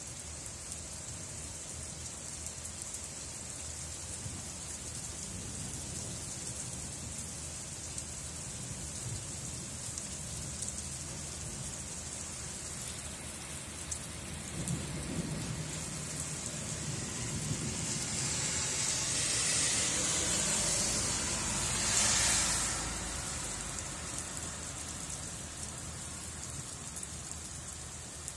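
Steady rain falling and hissing. About halfway through, a low rumble of thunder rolls in, swelling to its loudest a few seconds later before fading back under the rain.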